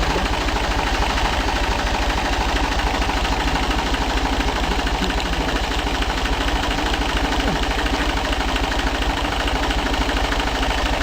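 An engine idling steadily, with an even, fast low pulsing.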